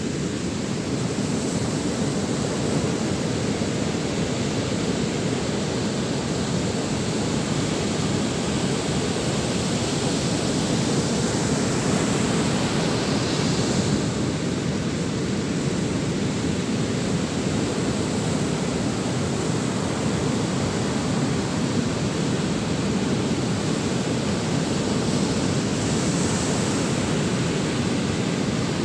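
Ocean surf breaking on a sandy beach, with wind: a steady, unbroken rush of waves.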